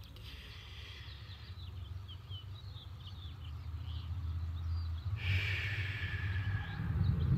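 A man breathing slowly and deeply: one long breath at the start and another about five seconds in, over a steady low rumble, with faint bird chirps between the breaths.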